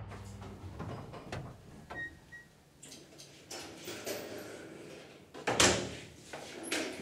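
A door being opened amid shuffling movement: rustling and scattered knocks, with one loud bang a little past halfway.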